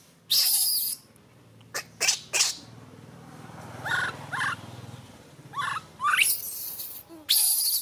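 Baby macaque crying: a string of short, high-pitched screeching cries and squeaks, repeated every second or so.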